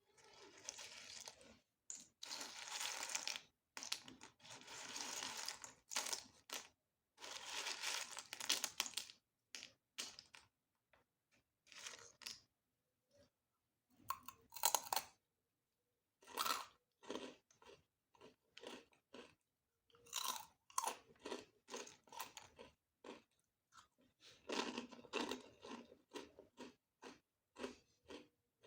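Close-miked chewing of crunchy food, crunching in bursts of a second or two with silent pauses between; the middle stretch has sharper, separate cracks.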